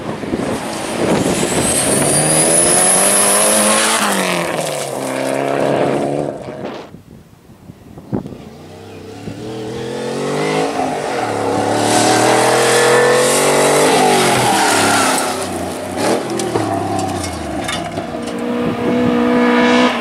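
Rally cars driven flat out, one after another, each engine revving up and dropping back through gear changes, with a short lull about seven seconds in.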